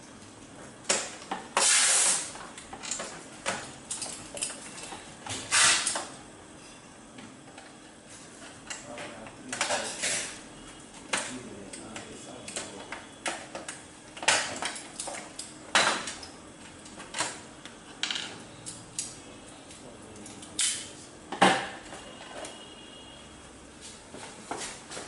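Irregular clicks, taps and rustles of hands handling telephone cables and connectors at a plastic PABX unit while wiring it in.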